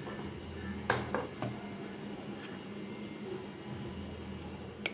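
Metal spoon stirring a flour-and-cornflour batter in a ceramic bowl, clinking against the bowl three times about a second in and once near the end, with soft scraping between. A steady low hum runs underneath.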